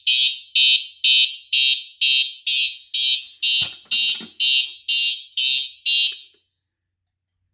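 White Simplex 4903-9257 electronic horn strobe sounding in march time, about two loud pulses a second. Its electronic horn tone sounds like a Simplex TrueAlert, because it has a TrueAlert horn inside. The horn cuts off about six seconds in.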